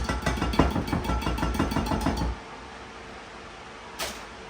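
A utensil knocking rapidly against a mixing bowl as thick brownie batter is tapped and scraped out into the baking pan, stopping a little over two seconds in, with one more light knock near the end.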